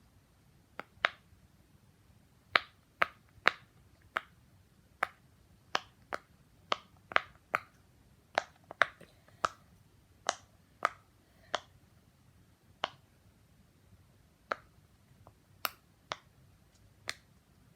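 Butterfly-shaped silicone pop-it fidget toy being pressed bubble by bubble on its louder side: a string of sharp single pops, one or two a second, with a short pause a little past the middle.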